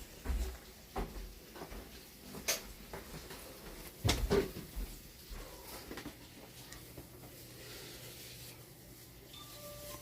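Scattered knocks, clicks and a few soft thumps, with a sharp click about two and a half seconds in and a low thump about four seconds in, over a faint steady hum.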